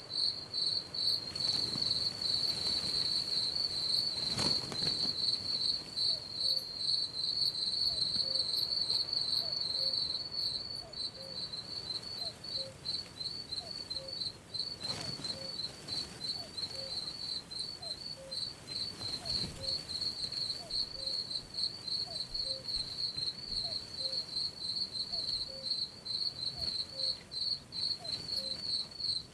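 Crickets chirping steadily in a fast, pulsing high trill, with a fainter, lower chirp repeating about every second and a half. A few soft swells of breeze-like noise pass under it, and it eases slightly in level about a third of the way in.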